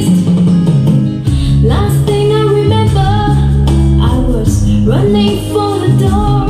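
A song with a woman singing over guitar and heavy, sustained bass, played loud as a sound test of a DIY videoke loudspeaker.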